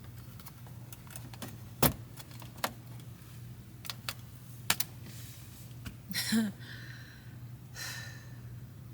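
Scattered sharp plastic clicks and taps from handling a battery-powered light and pressing its remote's buttons, the loudest about two seconds in, with a brief rustle of handling later on. A steady low hum runs underneath.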